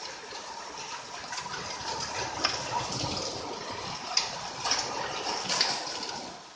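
Heavy rain with hail: a steady rush of falling water, broken by several sharp knocks of hailstones striking. It drops away near the end.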